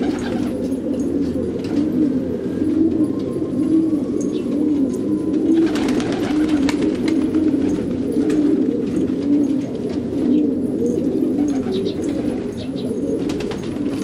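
Several domestic fancy pigeons cooing continuously, their low warbling calls overlapping one another, with scattered faint clicks and a brief rustle near the middle.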